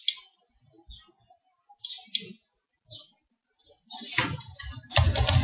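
Computer mouse clicking, single sharp clicks about once a second. About four seconds in, denser clicking starts, like keyboard typing.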